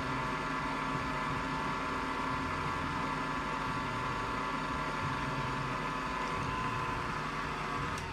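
Milling machine running steadily, its spindle motor and drive giving a constant whine over a low hum.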